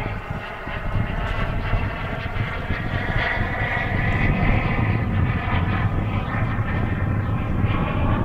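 Radio-controlled scale jet model of a Fouga Magister (Tzukit) flying overhead, its jet engine giving a steady whine over a low rumble. The whine grows a little stronger about three seconds in.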